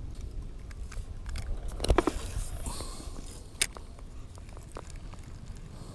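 A spinning rod and reel being cast: a few clicks as the reel is handled, fishing line hissing off the spool for about a second and a half, then one sharp click as the bail snaps shut.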